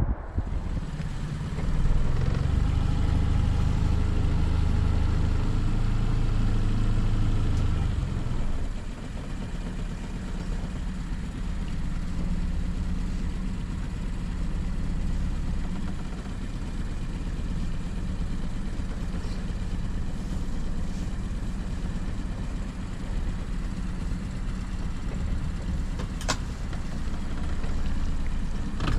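Small boat's outboard motor running steadily. It is louder and fuller for the first eight seconds or so, then settles to a lower, even drone. A single sharp click sounds near the end.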